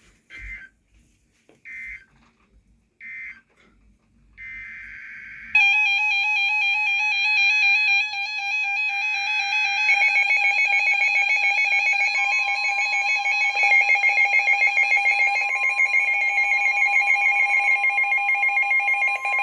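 NOAA weather radio emergency alert signalling: three short chirps of digital data, then longer data bursts, and from about five and a half seconds in a loud warbling electronic alarm that marks an incoming warning. From about twelve seconds in, a steady single-pitch tone (the 1050 Hz weather-radio warning tone) sounds under the alarm.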